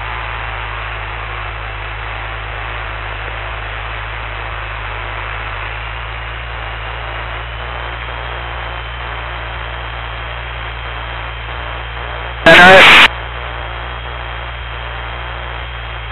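Steady hiss over a constant low hum from a Cessna 172's cockpit audio feed, with no one talking. A short loud burst of voice cuts in about twelve seconds in.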